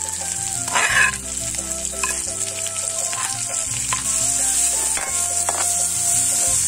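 Green chillies and sliced onions sizzling in hot oil in a metal wok, with a spoon clicking against the pan as they are stirred. The sizzling grows a little louder about halfway through. Soft background music with held notes runs underneath.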